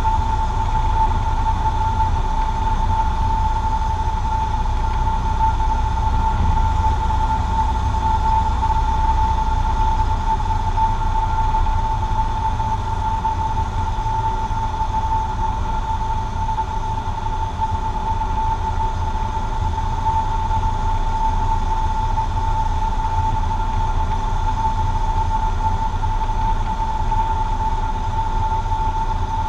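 Cabin noise of a Cessna 150J in flight on final approach: the four-cylinder Continental O-200 engine and propeller drone steadily with the rush of air over the cabin, under a steady high whine.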